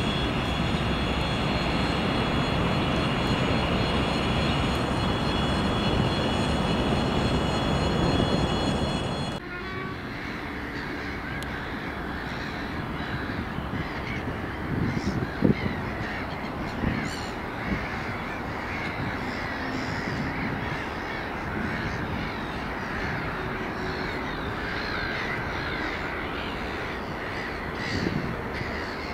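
A 2TE116U diesel locomotive running close by, a loud steady engine rumble with high whining tones above it. About a third of the way in this cuts off sharply to a quieter distant rumble, over which crows caw now and then.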